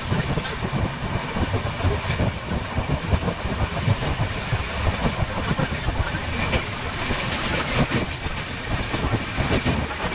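Passenger train carriage running along the track at speed: a steady rumble with irregular clatter of the wheels on the rails.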